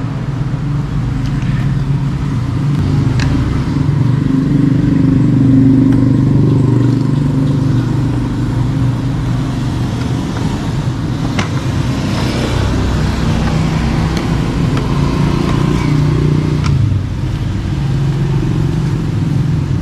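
A vehicle engine running steadily, its pitch shifting a few times, with a few sharp light clicks of an allen wrench working the battery-cover screws.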